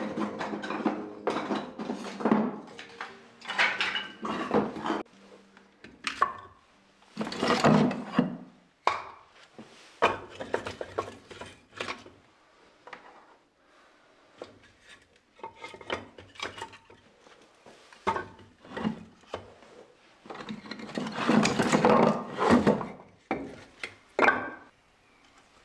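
Split firewood logs being stacked by hand into a wood stove's firebox: an irregular run of hollow wooden knocks and clatters as logs are set down against each other and on the stove's metal, with a ringing metal clatter at first.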